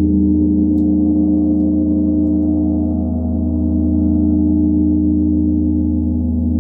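Large hammered Tibetan gong, about 90 cm across, ringing on after a soft-mallet stroke. It makes a dense, sustained hum of several steady tones over a deep low drone, dipping slightly and swelling again partway through.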